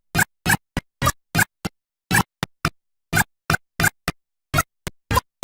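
Cartoon voice audio chopped into very short snippets, about three a second, each cut off abruptly with silence between: a stuttering, glitchy edit that sounds like a scratch or remix.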